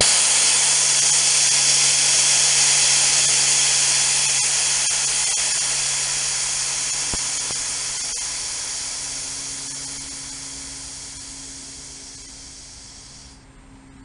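Compressed air hissing out of a Porter Cable air compressor's tank as it is bled down. The hiss starts suddenly and loud, then tapers off steadily as the pressure drops, dying away about a second before the end.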